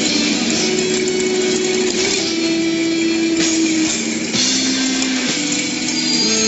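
Background music with long held notes that change pitch every second or two.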